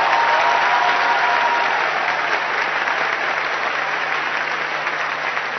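Large hall audience applauding steadily, easing slightly toward the end, with a faint held tone over it for the first two seconds.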